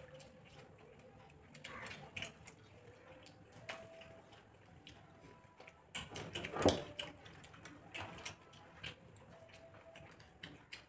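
Two people eating rice and curry with their hands: chewing and mouth smacks with short, irregular clicks, and a louder burst about six and a half seconds in.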